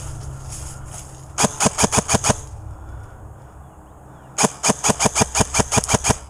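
Airsoft gun firing two rapid bursts of shots, about seven shots a second: a short burst of about seven shots, then about three seconds later a longer burst of about twelve.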